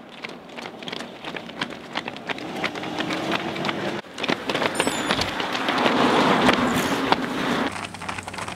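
Quick, overlapping footfalls of a group of runners on an asphalt road. A steady rushing noise with a low hum builds under them through the middle and cuts off sharply near the end.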